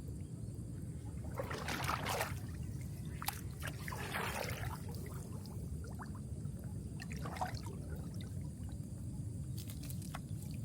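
Water splashing and trickling in short bursts, three or four times, as a gill net is pulled up out of a flooded field and water runs off it.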